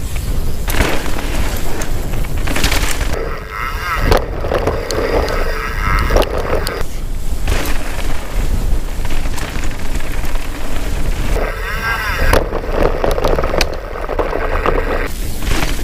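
Downhill mountain bike ridden fast over a rough dirt trail, heard through a bike-mounted GoPro: heavy wind buffeting on the microphone over the rumble and rattle of tyres and frame on the ground. Twice the hiss drops away for a few seconds and a muffled rumble takes over.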